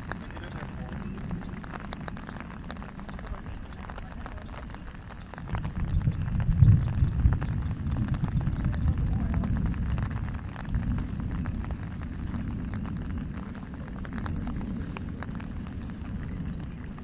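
Wind buffeting the microphone as a low rumble that swells louder about a third of the way in and eases off again, with rain pattering on umbrellas.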